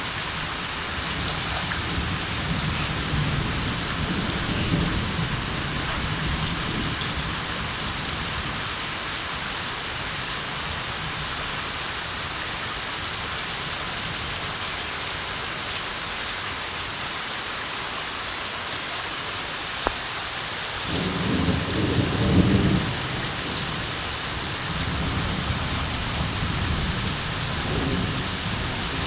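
Steady rain falling, with distant thunder rumbling low several times; the strongest roll comes about three quarters of the way through.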